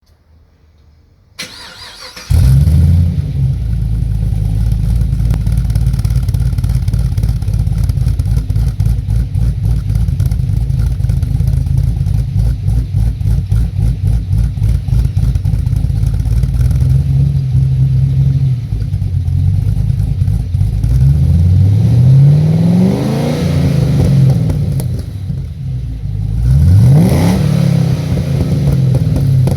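A 2013 Camaro's 6.2-litre L99 V8, fitted with a rough-idle cam, starts about two seconds in and settles into a lumpy, loping idle through its modified exhaust. It is blipped up and back down twice near the end.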